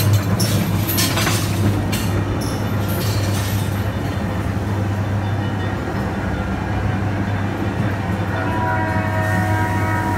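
Amusement-ride car rolling along its track: a steady low rumble, with rattling clacks in the first few seconds. Near the end, steady musical tones from the ride's soundtrack come in over the rumble.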